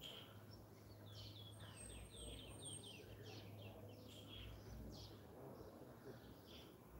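Faint birdsong: a quick run of short falling chirps about a second in, then scattered chirps, over a steady low hum.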